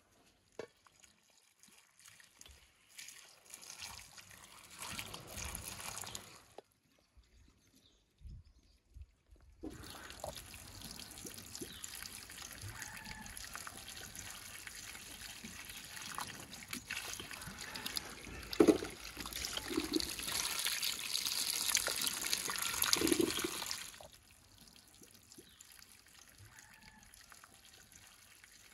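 Water from a garden hose running and trickling into a metal basin of strawberries as they are rinsed. It comes in two stretches, the second longer and louder, with a couple of short bumps before it stops about four seconds from the end.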